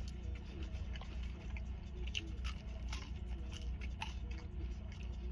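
Close-up chewing of fried food, with scattered soft crunches and wet mouth clicks, over a steady low hum.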